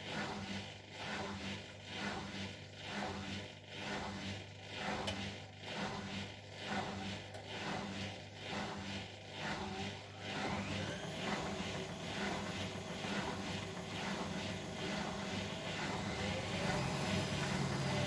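Bosch Maxx WFL 248Y washing machine running, its drum turning with an even pulse about once a second over a steady hum. About ten seconds in the pulsing gives way to a rising whine that grows louder as the motor speeds the drum up, the start of a spin.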